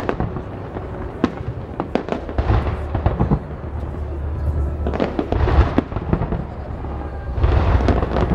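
Aerial fireworks bursting overhead: a string of sharp bangs and pops, with three spells of dense crackling, over a steady low rumble.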